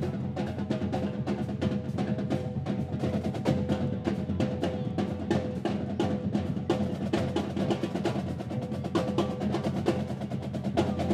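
Marching band playing live: brass and saxophones hold steady notes over rapid, busy snare-drum strokes from the drumline.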